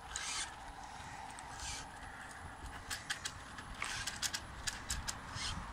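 Home-made six-wheeled RC car's drivetrain clicking and ratcheting as it creeps and turns on gritty concrete, with short scrapes of tyres on grit; the clicks come irregularly and cluster near the end. The car struggles to drive, which the builder puts down to running it on one battery instead of two.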